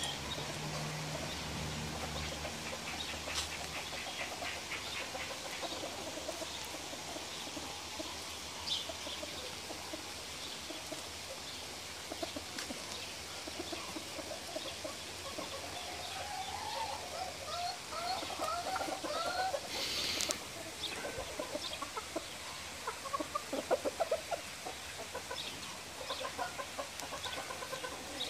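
Chickens clucking in short calls, more often in the second half, with a brief noisy burst about twenty seconds in.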